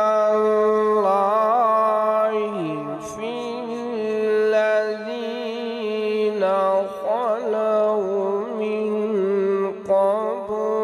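A male qari reciting the Quran in the melodic tajweed style, holding long drawn-out notes with wavering melismatic ornaments. The pitch dips about two and a half seconds in.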